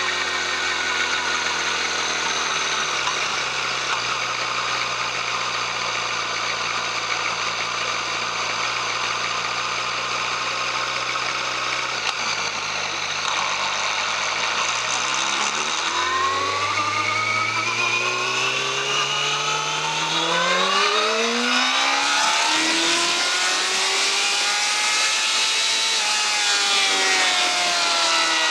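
Yamaha YZF-R6 inline-four engine through its stock exhaust, running at a steady low idle, then rising smoothly in pitch for several seconds from about sixteen seconds in as it is revved or accelerated, and falling again near the end.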